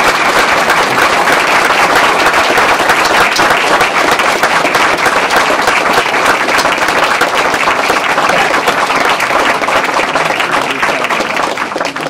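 A crowd of wedding guests applauding, many hands clapping steadily, then dying away near the end.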